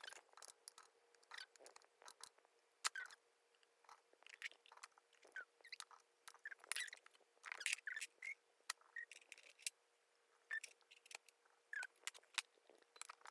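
Faint, irregular soft clicks and taps, some with short squeaks, as wet Orbeez water beads are dropped into the clear plastic tubes of a toy crushing station and plastic cups are handled.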